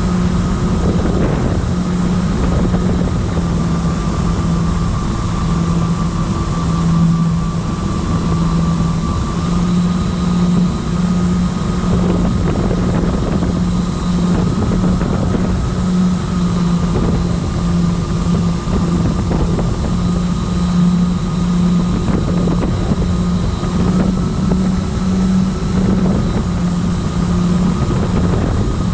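Electric motors and propellers of a My Twin Dream FPV model plane in flight, heard from the onboard camera: a steady drone whose pitch shifts slightly every few seconds, over the rush of wind.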